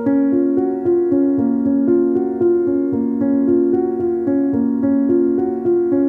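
Background piano music: a steady run of notes over longer held low notes.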